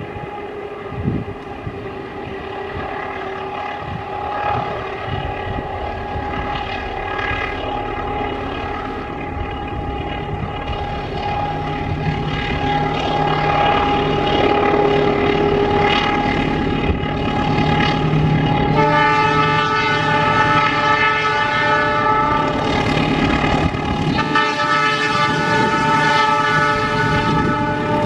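Diesel-electric locomotive hauling a passenger train, approaching and growing louder, with a steady high whine running under it: the odd humming sound that marks this locomotive. About 19 s in, its horn sounds a long chord blast, breaks off briefly and sounds again near the end.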